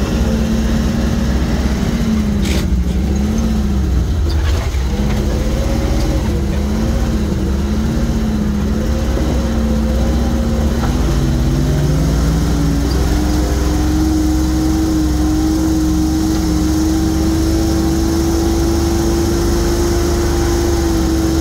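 GAZ-66 truck's V8 petrol engine running under load, heard from inside the cab as the truck drives over a rough gravel track. The engine speed wavers up and down in the first half, with a knock or two from the body a few seconds in, then rises about halfway through and holds steady.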